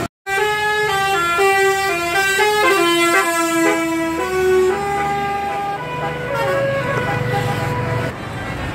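Bus telolet horn, a multi-tone air horn playing a quick tune of short stepped notes for about four seconds, then slower, softer notes, over the low running of the bus engine.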